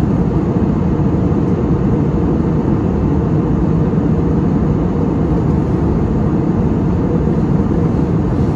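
Steady cabin noise inside an airborne Airbus A320neo: a low, even rumble of engines and airflow heard from a window seat.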